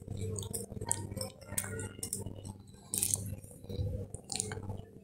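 Fingers stirring dry flour in a steel bowl: irregular scrapes and rustles of the hand working through the flour and brushing the bowl. A steady low electrical hum runs beneath.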